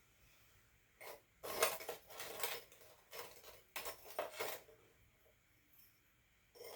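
Several short spells of light clinking and scraping as hard tea-ceremony fire utensils and pieces of charcoal are handled, the loudest clusters near the middle and a single clink near the end.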